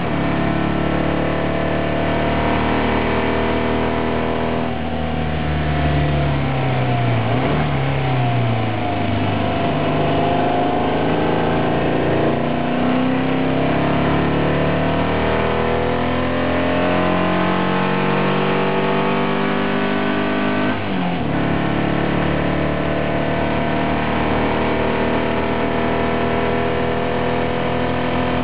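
The VW-engined Road Rat's engine heard from inside the car as it laps hard. The engine note falls as the car slows, about five to eight seconds in, then climbs again, with a brief break for a gear change about 21 seconds in.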